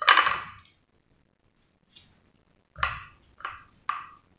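A knife cutting through a tomato: one loud cut at the start, then three quick cuts about half a second apart near the end.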